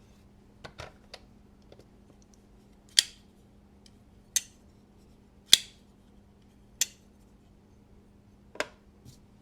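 Sharp metallic clicks from a titanium-handled folding knife being handled and set on a scale to be weighed. A few soft ticks come first, then five loud clicks about a second or so apart, each with a brief ringing tail.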